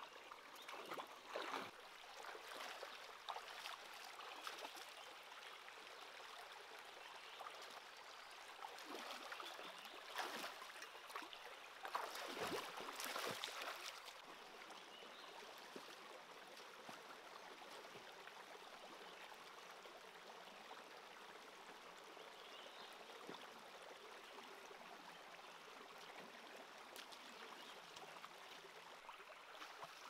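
Shallow stream running over rocks: a faint, steady trickle of water, with a few brief louder noises near the start and from about ten to fourteen seconds in.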